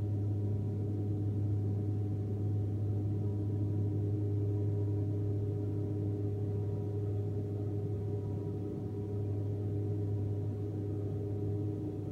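Inside the cabin of a Bombardier Dash 8-Q400 climbing out after takeoff, its Pratt & Whitney PW150A turboprops and six-bladed propellers drone steadily. It is a deep, even hum with fainter higher steady tones above it.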